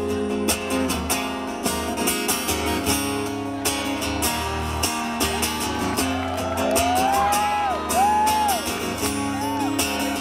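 Amplified acoustic guitar strummed steadily through a PA, in the instrumental break of a live song between chorus and verse. A short wordless melody line rises and falls over the chords about seven seconds in.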